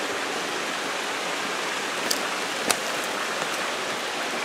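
Steady rushing of a small mountain creek flowing over rocks, with two short sharp clicks a little past halfway.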